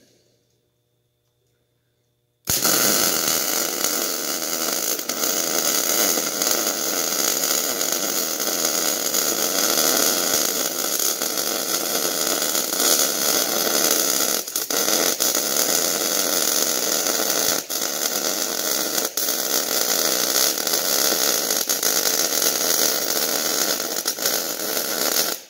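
Electric arc welding on steel: a steady crackling hiss of the arc that starts about two and a half seconds in, runs unbroken for a long bead, and stops abruptly near the end.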